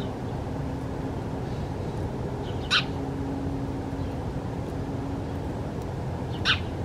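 Two short house sparrow chirps, one a little under three seconds in and one near the end, over a steady low rumble.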